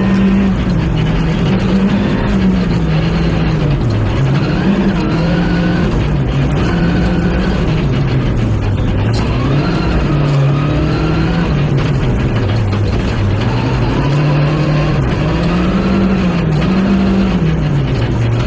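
Rally car engine driven hard, its pitch climbing and dropping every second or two as it accelerates, shifts and brakes continuously.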